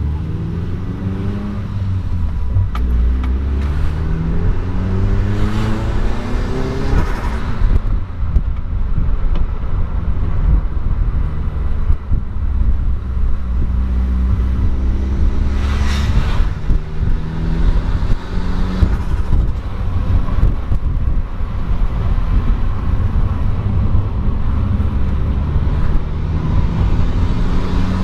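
A motor vehicle's engine accelerating several times, its pitch climbing and then dropping back at each gear change, over a steady low rumble. Twice a brief, louder rush of noise passes over it.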